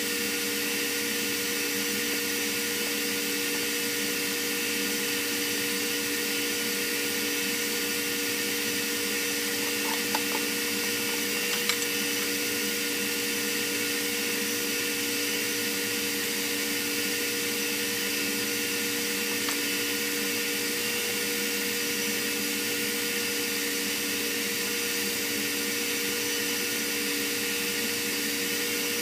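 Steady drone of a ship's engine-room machinery and ventilation: an even hiss with two constant hum tones running under it. A couple of faint light taps come about ten and twelve seconds in.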